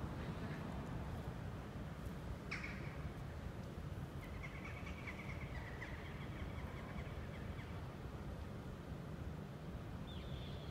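Bird calls over a steady low outdoor rumble: a short call that falls in pitch about two and a half seconds in, a longer drawn-out call a little later, and another short call near the end.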